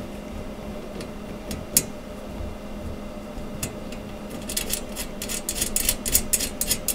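Small metal clicks of a nut being threaded by hand onto a bolt through the ledge of a metal bed frame: a single click about two seconds in, then a run of quick light clicks over the last couple of seconds.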